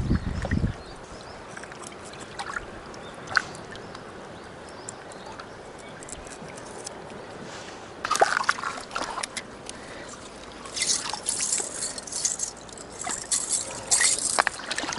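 Shallow water splashing and sloshing as hands clean and rinse fish in it. A quieter stretch comes first, then bouts of splashing from about eight seconds in and again toward the end.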